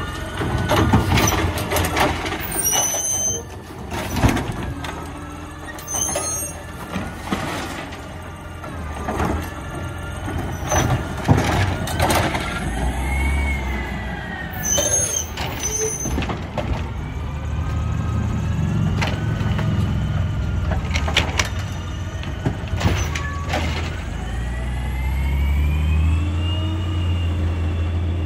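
Automated side-loader garbage truck at work: its diesel engine running and revving while the lifting arm and bins clank and bang, with several short hisses of the air brakes. Toward the end the engine rises in pitch and grows louder as the truck pulls away.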